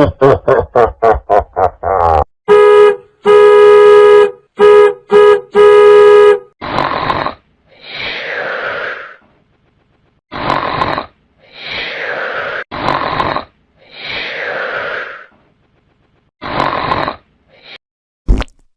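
A run of comedy sound effects played back to back: a quick string of short pitched blips, then several loud buzzy horn-like blasts, then repeated pairs of short noisy sounds, each pair ending in a falling sweep.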